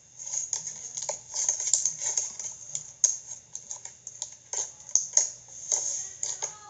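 Clear glitter slime being squished and poked by hand, making an irregular run of sticky clicks and small pops.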